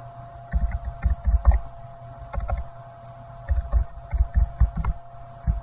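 Typing on a computer keyboard in a few short runs of keystrokes with pauses between them, over a faint steady hum.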